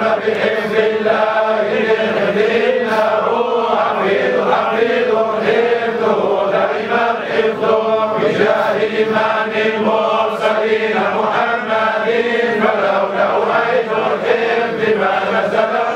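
A group of men chanting a Sufi devotional chant in Arabic together, with drawn-out, held notes and no instruments.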